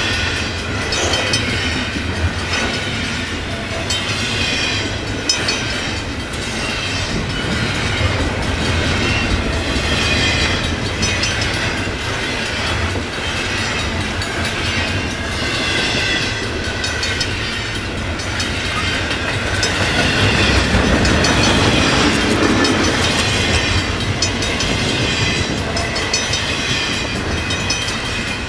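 Cars of a long CN intermodal double-stack container train rolling past, a steady rumble with wheels clicking over rail joints.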